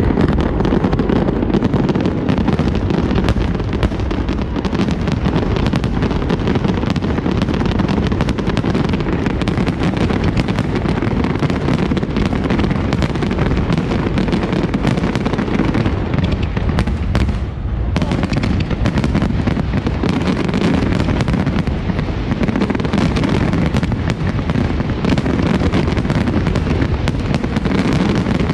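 Large fireworks display in a dense, continuous barrage of overlapping bangs, with a brief lull about two-thirds of the way through.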